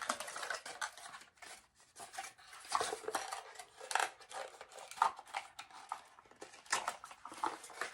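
Cardboard packaging being opened by hand, its flaps folded back and the pieces inside pulled out, with irregular scrapes, rustles and clicks.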